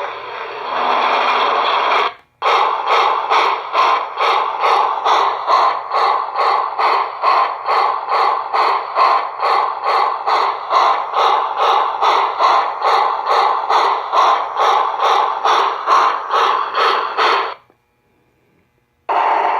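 Steam-locomotive sound effect from a QSI Maxx Traxx 604 small-steam sound module through its 1.5-inch speaker, thin with little bass. A steady hiss cuts off about two seconds in. After a brief gap, a regular chuffing beat at about two and a half strokes a second runs for some fifteen seconds and stops abruptly. A new sound starts just before the end.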